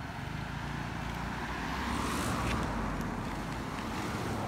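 Outdoor street noise: a steady low rumble of passing vehicles that swells about halfway through.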